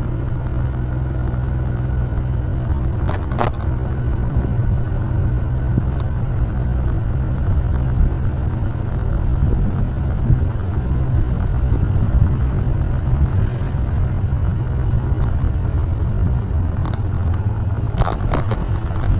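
Steady low rumble of a vehicle driving along a paved street: engine and road noise. A few short clicks come about three seconds in and again near the end.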